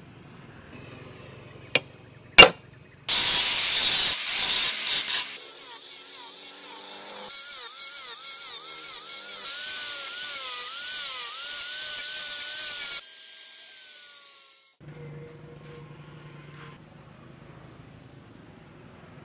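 Two sharp hammer blows on a steel punch, setting a pin in the knife's wooden handle. Then an angle grinder with an abrasive disc works the steel for about ten seconds, a loud high hiss over the motor's whine, which wavers as the pressure changes, before the grinder winds down and stops.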